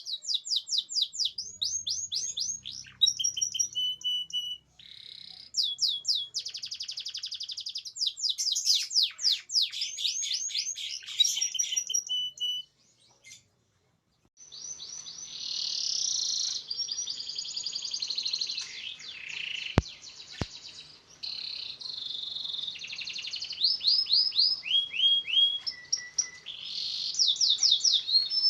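Canary singing a long, continuous song of fast rolling trills and rapid repeated sweeping notes. The song breaks off for about a second and a half near the middle, then carries on.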